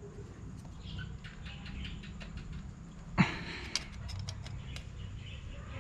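Small metal clicks and scrapes of a hand tool prying at a diesel fuel injection pump, with one sharp clack about three seconds in and a few lighter clicks after it.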